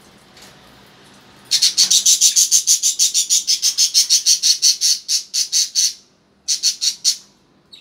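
Small caged parrot giving a fast run of shrill, evenly repeated chirps, about nine a second, for some four and a half seconds, then a short burst of a few more after a brief pause.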